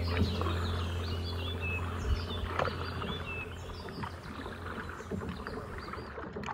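Small birds chirping and twittering over the splash and lap of water around a kayak on a lake, with a couple of paddle-like splashes a little past two seconds in. Low background music fades out in the first two seconds.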